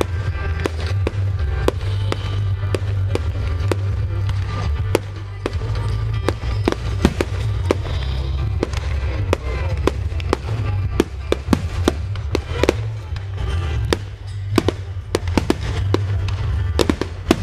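Fireworks going off in quick succession, with many sharp cracks and bangs throughout. Music with a heavy bass plays underneath.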